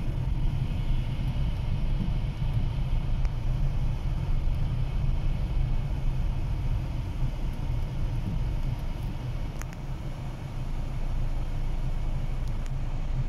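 Steady low rumble of a car's engine and road noise heard from inside the cabin while it creeps along in traffic. There is a single faint click near ten seconds in.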